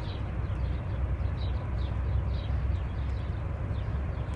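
Steady low rumble of outdoor background noise, with birds chirping over it in short, high, repeated chirps, two or three a second.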